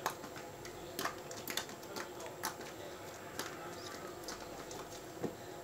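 Hands squishing and stretching white glue slime mixed with gold beads: irregular sticky clicks and pops, about a dozen, with a sharper one about five seconds in.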